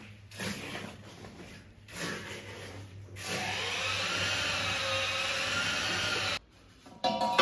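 A hand trowel scraping and patting wet tile mortar on a floor in a few separate strokes, then a steady whirring like a small motor, its pitch wavering slightly, for about three seconds before it cuts off suddenly.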